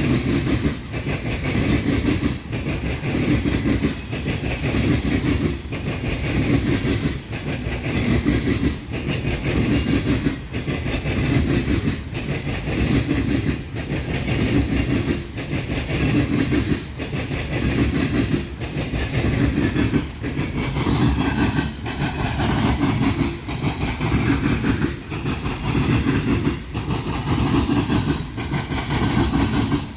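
Railroad cars of a passing train rolling over a diamond crossing, their wheels clacking in a regular rhythm about once a second over a steady rumble. Faint steady tones, such as wheel squeal, join in about two-thirds of the way through.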